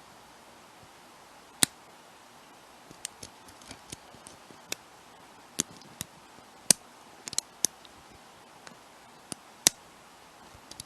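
Sharp, irregular metallic clicks of lock picks working the pin tumblers of a brass padlock: about a dozen clicks, a few of them much louder than the rest.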